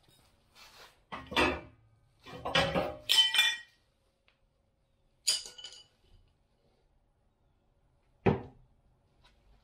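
Metal hand tools and parts clinking and clanking as they are handled and set down. There are several clanks in the first four seconds, some of them ringing, another ringing clink about five seconds in, and a sharp thump near the end.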